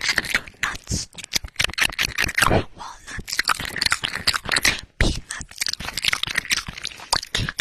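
ASMR mouth sounds pressed right against the microphone: a quick, irregular run of wet clicks and smacks from lips and tongue on the microphone's padded cover, with short pauses.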